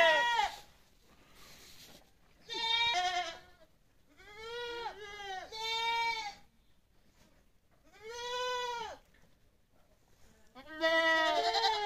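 Boer goats bleating in a barn pen: a series of separate quavering bleats, each about a second long, with short quiet gaps between.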